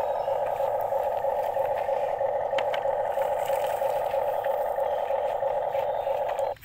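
Small electric motors and plastic gearboxes of a toy RC excavator whirring with a steady buzz as the boom and bucket move, cutting off abruptly near the end.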